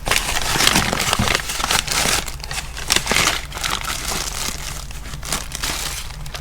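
Packing paper and cardboard being crumpled and rustled while a box is unpacked: irregular crinkling and crackling, a little quieter in the second half.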